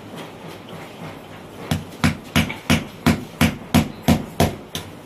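Hammer driving a small nail through a thin wooden strip into a particleboard bed panel: about ten quick, even blows, roughly three a second, starting about a second and a half in.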